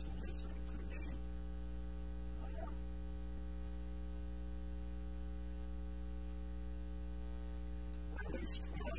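Steady electrical mains hum with a ladder of evenly spaced overtones, running at an even level. A few brief faint noises come just after the start and about two and a half seconds in, and a short burst of other sound comes near the end.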